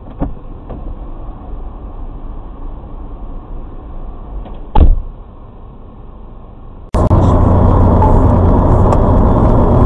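Car road noise heard from inside the cabin on a dashcam, with one brief, loud knock about five seconds in. About seven seconds in it cuts abruptly to much louder road and wind noise of a car driving fast on a highway.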